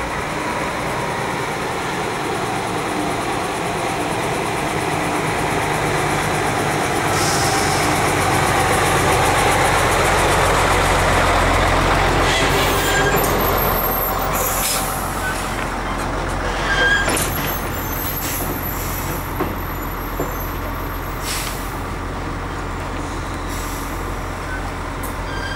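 Heavy diesel truck towing a train of circus trailers driving slowly past, its engine loudest about halfway through as it goes by. Short hisses of compressed air from its air brakes come about seven seconds in and several more times later, along with a few knocks.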